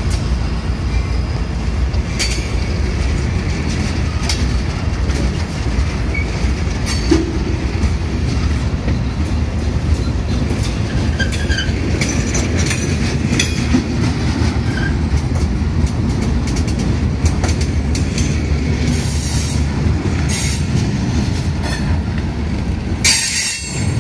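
Freight train rolling past at close range: a steady, loud rumble of the cars with sharp wheel clicks over the rails and a few brief high wheel squeals.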